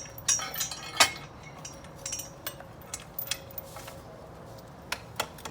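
Light metallic clinks and knocks, the sharpest about a second in and another near the end, over a low steady hum.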